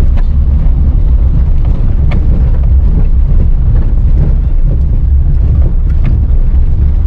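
Loud, steady low rumble of a car driving over a rough, unpaved dirt road, heard from inside the vehicle, with a few small knocks from bumps.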